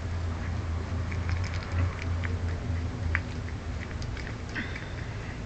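Cat chewing on a mouse it has caught: scattered small wet clicks over a steady low hum, with one sharper click about three seconds in.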